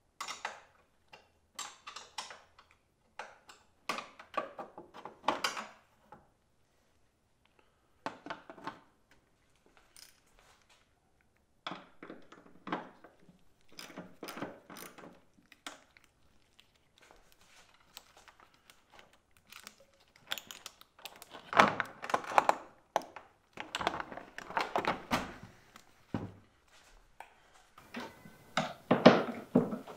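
Metal clicks and clanks of a wrench working the side-post terminal bolts of a GM truck battery, with cables and tools knocking against it, in irregular clusters; louder thunks come about two-thirds of the way in and again near the end.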